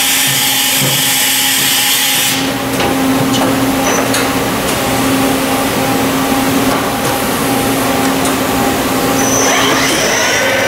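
Machine shop machinery running: a steady hum under a noisy hiss. A loud high hiss fills about the first two seconds, and a short rising whine with steady high tones comes in near the end.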